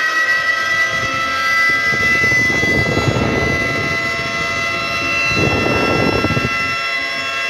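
Outdoor tornado warning siren sounding at full pitch, holding a steady chord of several tones. Twice, a few seconds of low rushing noise rises under it.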